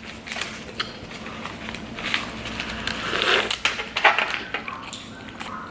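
Close-miked eating sounds from a burrito being bitten and chewed: sharp mouth clicks and crunchy, crackly noise, densest a little past the middle.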